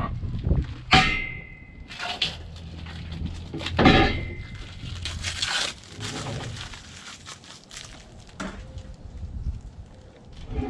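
Steel pallet forks being handled. Two sharp metal clangs, about three seconds apart, each leave a ringing tone that fades over a second or so, with scraping and handling noise between them.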